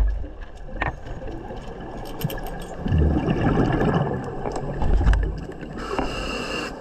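Scuba regulator breathing heard underwater: a gurgling rush of exhaled bubbles about three seconds in and again around five seconds, then a hissing inhale through the regulator near the end, with scattered bubble clicks.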